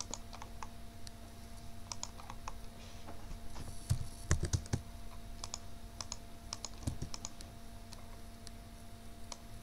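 Irregular clicks of a computer mouse and keyboard as points are picked and keys pressed while drafting in AutoCAD. A cluster of clicks comes about four to five seconds in, over a faint steady hum.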